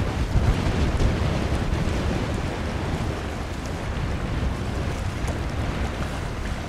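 Wind buffeting the microphone in a low, uneven rumble, over a steady wash of choppy water.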